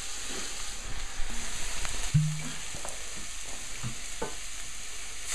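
Sliced mushrooms and onions frying in a stainless steel pan, sizzling steadily, with a wooden spatula stirring and clicking against the pan a few times.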